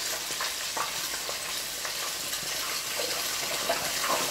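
Hot oil in an electric deep fryer sizzling steadily with many small crackles, as a basket of battered, deep-fried mussels drains above it.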